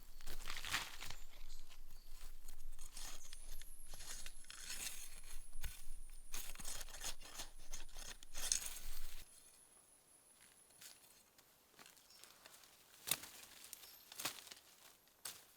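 Dense dry crackling and rustling for about nine seconds, then much quieter, with a few sharp clicks near the end.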